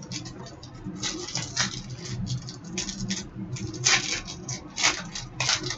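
Hockey trading cards being handled: a quick, irregular run of short rustling and sliding strokes as cards are shuffled and set down, over a faint steady low hum.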